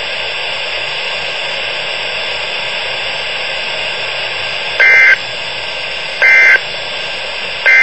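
Steady radio hiss, then three short, loud, identical bursts of EAS digital data tones about a second and a half apart: the SAME end-of-message code that closes the alert.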